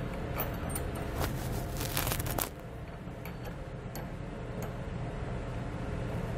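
Small metal clicks and clinks of bolts, washers and nuts being handled and threaded by hand onto a steel tow bar mounting bracket, busiest in the first two and a half seconds and sparser after, over a low steady hum.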